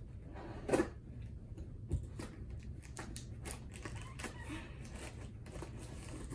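Scissors snipping through the tape on a small cardboard box, then the cardboard being handled and pulled open: a run of small clicks and rustles, with a couple of louder knocks in the first two seconds.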